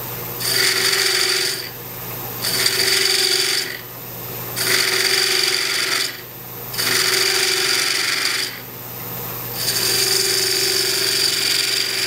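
Detail spindle gouge cutting a chamfer, a straight cut, on the end of a small wooden block spinning on a wood lathe: five cutting passes of one to two seconds each, with the lathe's steady hum in the short gaps between.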